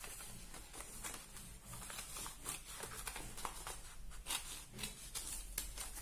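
Scissors cutting through a folded brown paper pattern: a run of irregular snips with the paper crinkling as it is handled.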